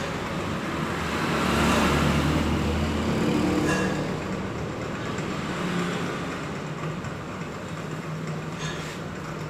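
Steady vehicle noise with a low engine hum that swells about two seconds in and then eases off, as of a heavy vehicle passing by.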